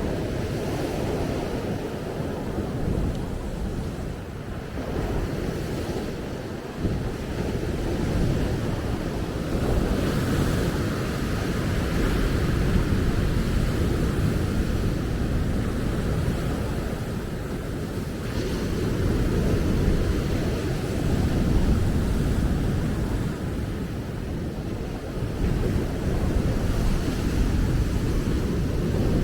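Ocean waves breaking and washing up a beach, a continuous rush that swells and eases every several seconds, with wind buffeting the microphone.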